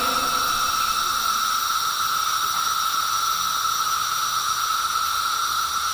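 Cicada singing: one steady, unbroken, high-pitched buzz. The sound comes from the insect's ribbed tymbal membranes on the abdomen popping in quick succession, and it is the male's mating call.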